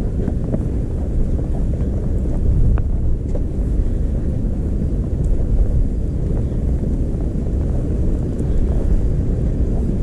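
Blizzard wind buffeting the microphone: a loud, deep rumble that swells with gusts several times.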